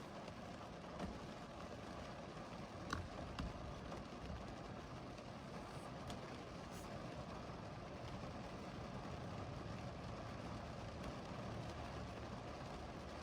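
Steady rain, an even hiss with a few sharper drop clicks scattered through it.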